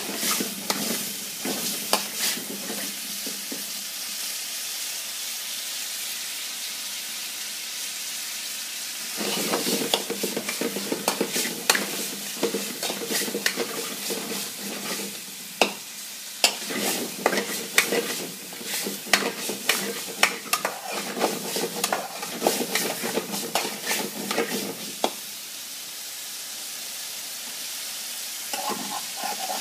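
Curry sizzling in a frying pan over a gas flame, with a metal spoon scraping and clicking against the pan as it is stirred. The steady sizzle runs throughout; the stirring clicks come thickest through the middle.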